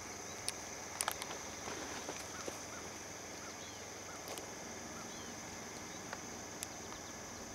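Outdoor summer ambience: a steady high-pitched insect drone with short repeated bird chirps, and a few sharp clicks, two of them close together about a second in.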